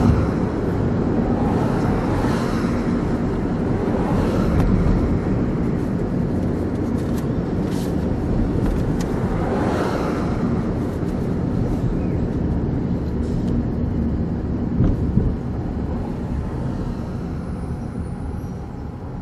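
Steady road and engine noise from inside a moving car, swelling now and then and easing off over the last few seconds as the car slows to a stop.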